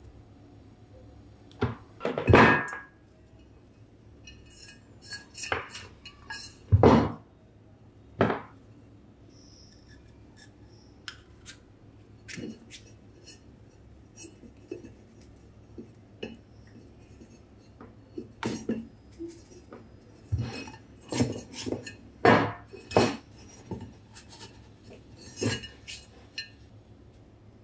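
Small metal parts and hand tools being handled and set down on a workbench: irregular clinks, clicks and knocks, the loudest about two and seven seconds in, with a busy run of them in the last third.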